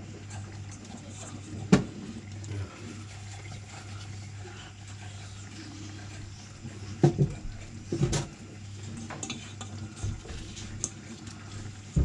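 Kitchen clatter as dumplings go into a pot of curry chicken: a few sharp knocks of a utensil against the cooking pot, about two seconds in, twice around seven to eight seconds, and once at the end, over a steady low hum.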